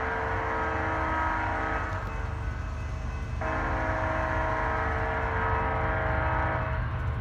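Locomotive air horn sounding a chord of several notes from an approaching train: the end of one long blast, then a gap, then a second long blast of about three seconds beginning a little after three seconds in.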